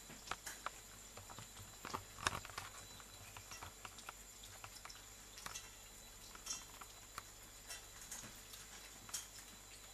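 A cat lapping water from a thin stream running from a kitchen tap: irregular, soft wet clicks and splashes over a faint trickle, the loudest about two seconds in.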